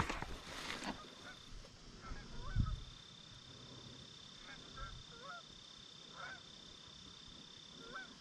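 Canada geese honking faintly in the distance, scattered single calls throughout, with a soft thump about two and a half seconds in.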